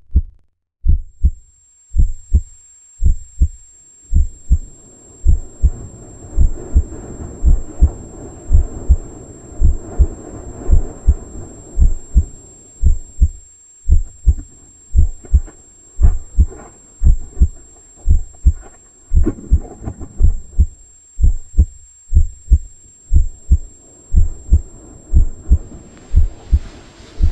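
Heartbeat sound effect: low, muffled thumps repeating about twice a second, with a dull rushing noise beneath them for long stretches.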